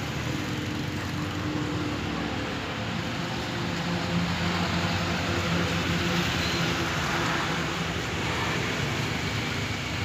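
Steady hum of a motor vehicle engine running, with steady outdoor traffic noise.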